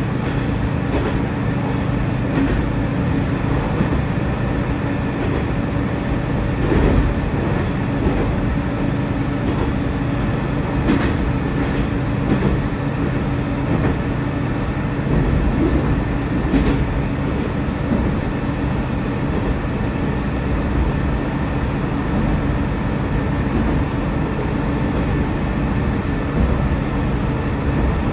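Tosa Kuroshio Railway 8000 series diesel railcar running along the line, heard from inside the car: a steady engine drone and wheel-on-rail rumble, with a few irregular clicks from the wheels passing rail joints.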